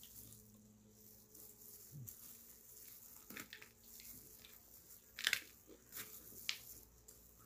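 Close eating sounds: quiet chewing of fried chicken and noodles, with a few short, sharp crackles. The loudest comes a little past five seconds in.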